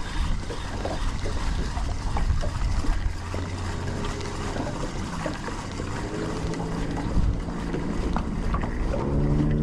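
Wind buffeting the microphone on a small fishing boat, a steady low rumble with scattered small knocks. A low hum with overtones comes in about halfway through and grows over the last couple of seconds.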